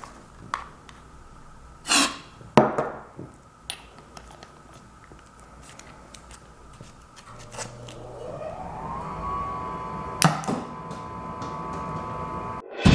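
Knocks and clicks from a homemade pipe gun being handled, the loudest about two and a half seconds in, then a tone that rises about eight seconds in and holds steady to near the end.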